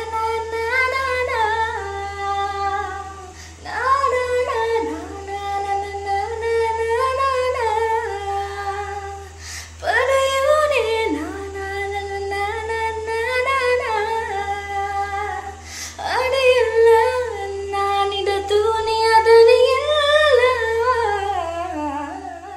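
A woman singing solo in four long phrases whose pitch slides up and down, with short breaths between them and a steady low hum underneath.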